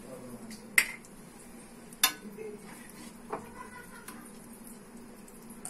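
A few sharp clinks of a metal utensil against cookware, about a second and a half apart with the middle one loudest, over a faint steady hum, while a pat of butter begins to melt on a hot iron tawa.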